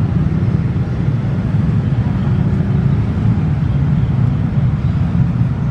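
Diesel-electric locomotive's engine running in a steady low rumble as the locomotive creeps up to couple onto the passenger carriages during shunting.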